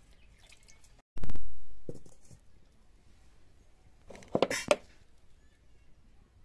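Handling knocks from cookware: a loud, sudden thump about a second in that fades out over about a second, then a short clatter of several quick knocks a few seconds later.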